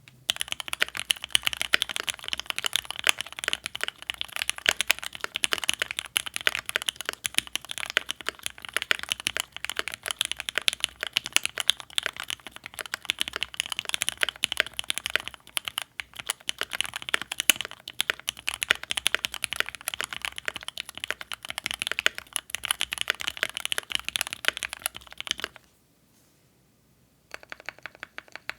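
Rapid typing on a Keychron Q2 mechanical keyboard with Gateron Oil King linear switches and GMK Pulse keycaps: a dense run of key clacks. The typing stops for about a second and a half near the end, then resumes with lighter, higher-pitched clicks.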